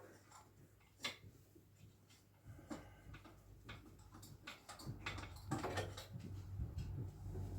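Scattered light clicks and knocks of things being handled, with a sharper knock about a second in, over a low hum that grows louder about halfway through.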